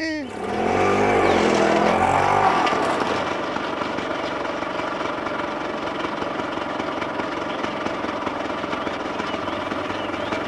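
Auto-rickshaw engine running, its pitch rising and falling in the first couple of seconds, then running steadily.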